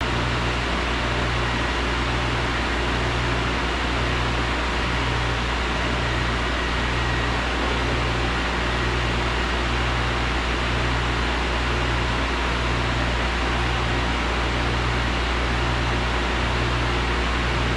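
Steady machine hum and hiss, like a fan or air-handling unit running, with a low throb that pulses evenly a little faster than once a second.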